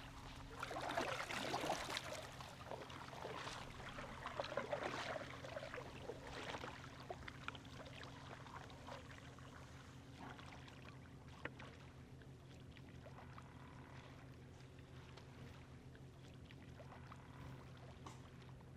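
Double-bladed kayak paddle stroking through calm water, splashing and dripping at an irregular pace for the first several seconds, then fading to faint water sounds with a few small clicks.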